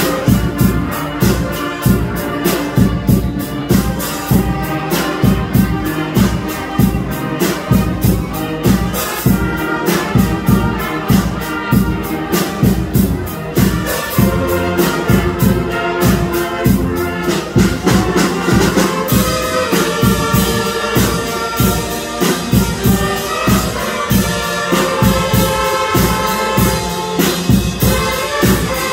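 Youth wind band playing live: saxophones, clarinets, trumpets and sousaphone over a steady drum beat, moving to longer held notes about two-thirds of the way through.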